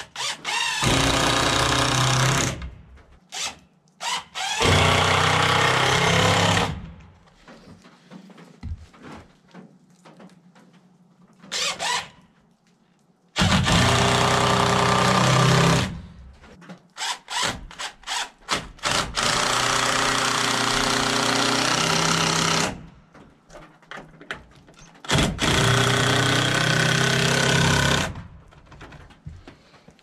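18-volt cordless DeWalt impact driver driving screws into the overhead framing. It comes in five runs of two to three seconds each, with short blips between them, and its pitch rises as each run starts.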